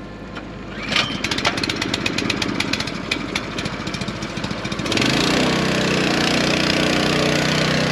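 Small gasoline engine on a liquid fertilizer transfer pump starting up. It fires roughly with a rapid ticking for a few seconds, then about five seconds in picks up to a steady run. It is running on choke, which the owners blame on something wrong with the pump's engine.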